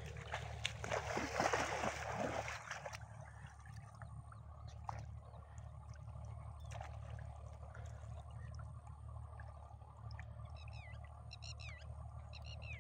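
Shallow lake water splashing for about two seconds near the start, then a faint trickle. Near the end a small bird calls in several short runs of quick falling chirps.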